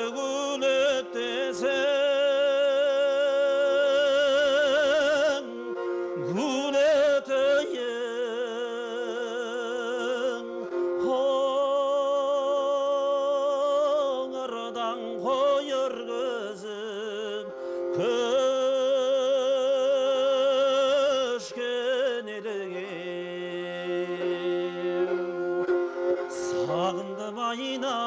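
Kobyz, the Kazakh bowed string instrument, playing a slow melody of long held notes with wide vibrato and swooping slides up into notes, over a steady drone that drops lower about two-thirds of the way through.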